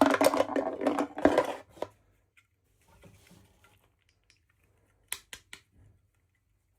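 Toy packaging being handled: a loud rustle for the first couple of seconds, a faint rustle, then four quick clicks of small hard plastic pieces a little after the middle.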